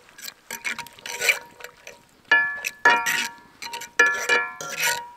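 A metal utensil scraping and knocking against a frying pan while stirring a reducing white wine pan sauce: scraping about a second in, then five sharp clinks, each ringing briefly.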